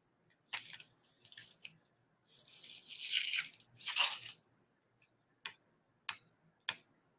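Fingernails scratching and picking at the stuck end of a roll of blue painter's tape, trying to lift it off the roll: several short scratchy bursts, then a few light clicks near the end.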